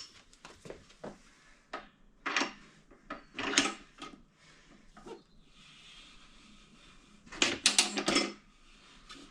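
Motorcycle tire being worked onto its wheel rim on a manual tire changer: scattered rubbing, scraping and knocking of rubber and metal, with a louder run of scrapes about seven and a half seconds in.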